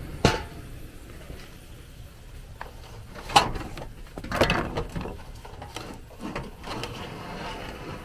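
Handling clatter as a plastic sign panel and metal parts are pulled out of a furnace's filter slot: scattered knocks and scrapes, the sharpest about a third of a second in, near three and a half seconds and around four and a half seconds.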